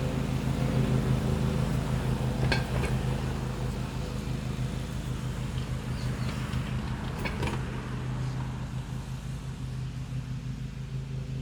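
A lawn mower's small engine runs steadily with a pulsing hum. A few short scrapes and clicks of hand digging in soil come about two and a half seconds in and again about seven seconds in.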